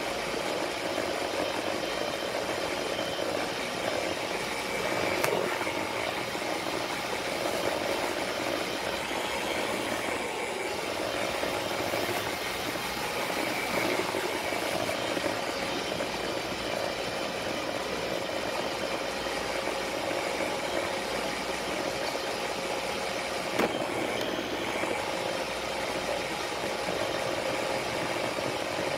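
Roomba robot vacuum running, heard from on top of the robot: a steady motor and brush hum with a rattle, and a couple of sharp knocks as it bumps into things.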